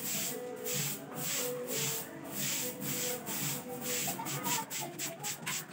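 Fibre broom swept in short, quick strokes across a bare concrete floor, about two to three swishes a second.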